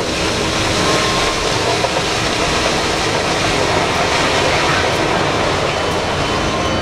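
A load of dark rock sliding and pouring from the raised bed of a giant mining dump truck, a steady loud rushing rumble.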